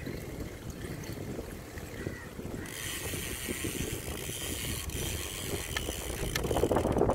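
Wind buffeting the microphone over the low rumble of bicycle tyres rolling on a paved path. A steady higher hiss joins about three seconds in, and the wind gusts stronger near the end.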